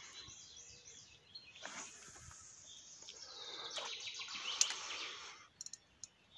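Birds chirping over a soft outdoor hiss, with a few sharp clicks near the end.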